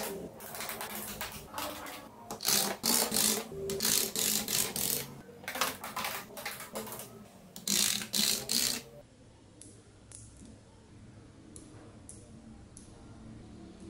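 Small magnet balls clicking and rattling against each other in quick, dense clatters for about the first nine seconds. Then it turns quieter, with a few separate sharp clicks as single pieces snap into place.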